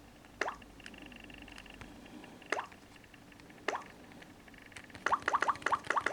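Phone ringtone or alarm tone made of electronic water-drop plops: three single drops a second or two apart, then a quick run of many drops from about five seconds in. Faint held tones sound briefly under the early drops.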